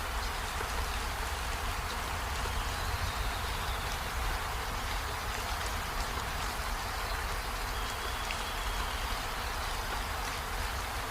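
Steady rain falling, an even hiss with faint scattered drop ticks over a low rumble.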